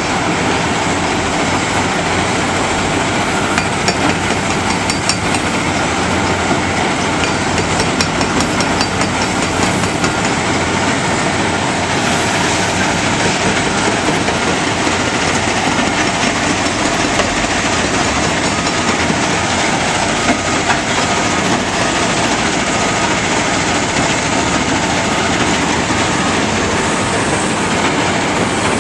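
Hydraulic breaker on an Akerman EC420 excavator hammering concrete: a fast, steady clatter of blows over the continuous running of a rock crusher and diesel machinery. The hammer's rattle is plainest in the first ten seconds or so.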